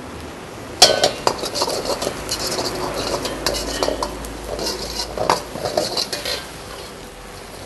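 Steel ladle clanking and scraping against a metal wok as an onion and spice-powder mixture is stirred, over the sizzle of frying. A sharp clank about a second in is the loudest; the knocks and scrapes thin out near the end.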